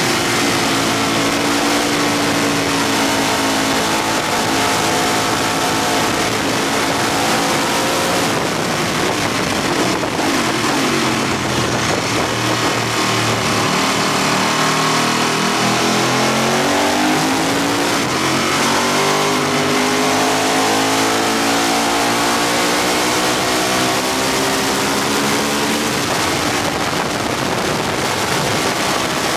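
Onboard sound of a Ducati superbike's L-twin engine at track speed, its note rising and falling as the rider works through the gears and corners, under heavy wind rush.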